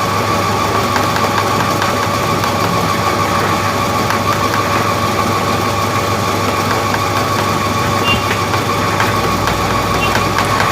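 Commercial wet-batter grinding machine running steadily as it grinds soaked rice with water into idli batter: an even motor hum with a constant high tone.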